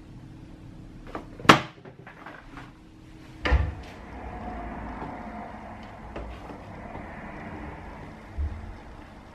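Interior door being opened: a few light latch clicks, one sharp loud click about a second and a half in, then a heavier thump about three and a half seconds in as the door swings open, and another low thump near the end.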